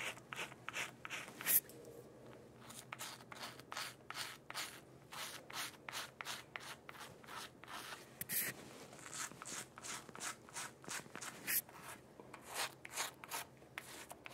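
Five-blade cartridge razor scraping through lathered stubble on the neck, in a quick series of short strokes at about two a second, each a brief rasp.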